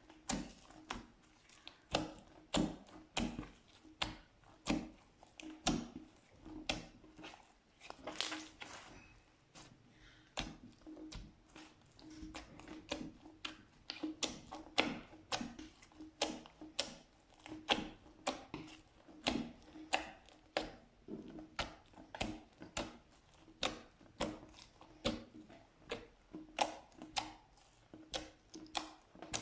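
Slime being pressed and worked by hand, giving a steady run of sharp, wet clicks and pops, about one or two a second, over a faint steady hum.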